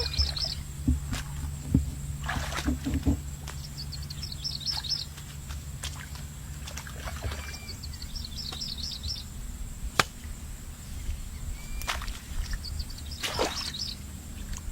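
A bird singing short phrases of quick, high notes about every four seconds. Beneath it are a steady low rumble, scattered knocks and a couple of sloshes of water.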